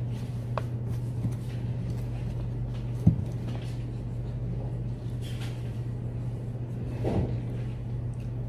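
A pen scratching on paper while writing, over a steady low hum, with a single sharp knock on the table about three seconds in and a softer bump near seven seconds.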